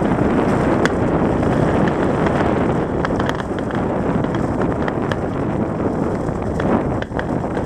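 Fireworks bursting over water: a scattering of sharp bangs and crackles from the shells. They sit under loud, steady wind noise on the microphone.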